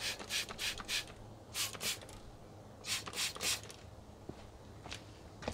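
Trigger spray bottle squirting soapy water onto cooling-system hose joints, in quick runs of short hissing sprays, to check for leaks while the system is under pressure.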